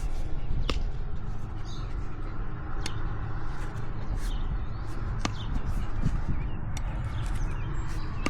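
Hoof nippers cutting the overgrown hoof wall of a miniature horse colt: a few sharp, separate snaps a couple of seconds apart, over a steady low rumble.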